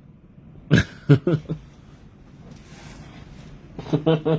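A man's voice in two short untranscribed bursts, about a second in and again near the end, with faint room hiss between.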